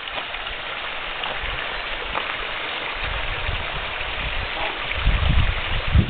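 Water from two spouts of a stone fountain pouring and splashing steadily into its trough. A low rumble comes in about halfway and grows stronger near the end.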